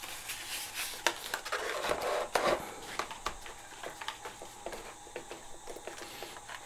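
Handling noise: scattered light clicks and brief rustles as fingers work wires and a small gyro board into a foam RC plane fuselage.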